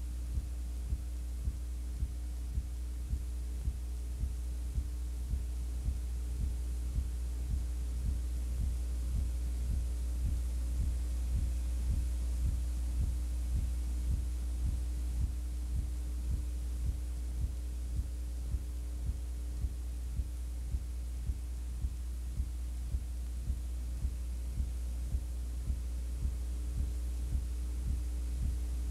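Steady low hum with a soft low thump repeating about every two-thirds of a second; no game or crowd sound.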